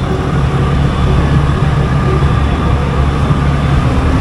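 A motor vehicle driving along a road: its engine runs steadily at cruising speed, giving a constant low hum under steady road and wind noise.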